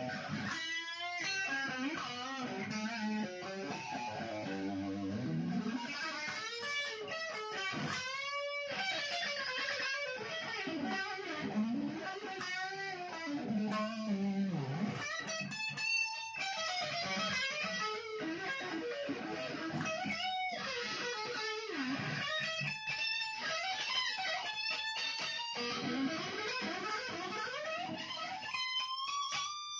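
Fender Mustang electric guitar played lead: quick runs of single notes with many string bends that slide the pitch up and down.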